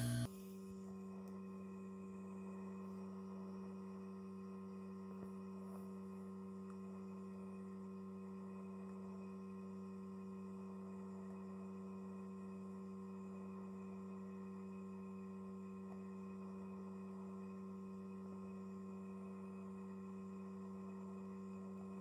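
Hot air rework station's blower running steadily, a faint even hum, while it reflows solder paste under a micro SD card connector on a circuit board.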